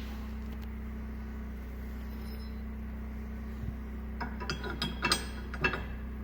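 Metal hitch parts clinking and clicking against each other as they are handled, in a quick irregular run starting about four seconds in, over a steady low hum.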